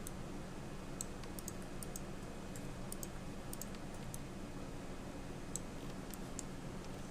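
Faint clicks of a computer mouse and keyboard, a dozen or so at irregular intervals, over a steady low hum.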